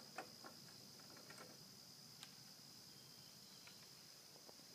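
Faint, steady high-pitched chirring of insects in the trees, with a few soft clicks in the first half.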